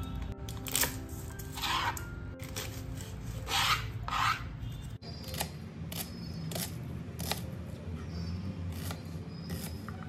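Kitchen knife cutting a red onion on a plastic chopping board: a few longer rasping strokes in the first half, then short sharp taps of the blade on the board at irregular intervals from about halfway. Background music plays throughout.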